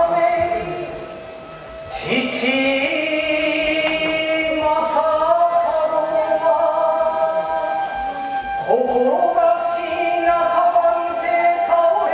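Kagura chanting: voices holding long sung notes that scoop up in pitch as each phrase begins, about two seconds in and again near nine seconds.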